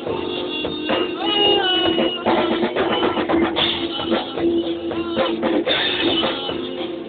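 A rock band playing, with a drum kit keeping a dense beat under guitar and a held low note, and a melody line sliding in pitch above.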